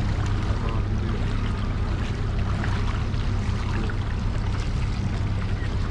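Steady low rumble and wash of a small fishing boat underway at trolling speed: outboard motor running with water moving along the hull and wind on the microphone.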